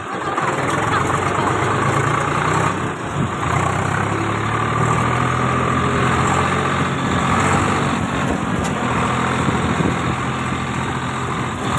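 Farm tractor's diesel engine running steadily while it drives across a field, heard from on board the tractor.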